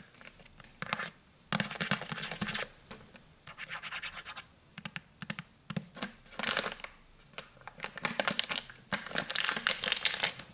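Fingernails scratching the soft plastic wrapper of a pack of disinfectant wipes, in short runs of quick strokes with pauses between.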